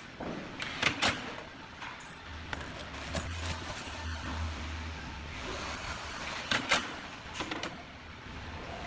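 Sharp clicks and knocks of wooden cabinet parts and metal fittings being handled during kitchen cabinet installation: a pair about a second in and several more around seven seconds in, with a low hum for a few seconds in between.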